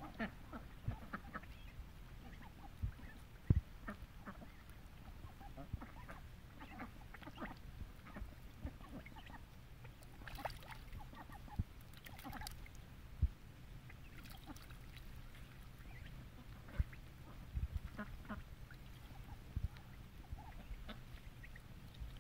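Young Khaki Campbell duck bathing in a shallow plastic wading pool: irregular short splashes of water as it dips and flaps, with a few short calls now and then.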